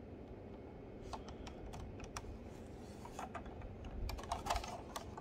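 Light clicks and taps of hands handling a 1:18 scale diecast model car, scattered from about a second in and bunching into a louder cluster near the end.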